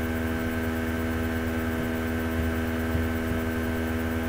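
Steady electrical mains hum: a constant buzzy drone made of a stack of even tones, unchanging throughout.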